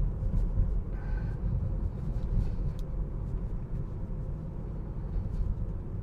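Steady low road and tyre rumble inside the cabin of a moving Tesla Model 3, an electric car with no engine note.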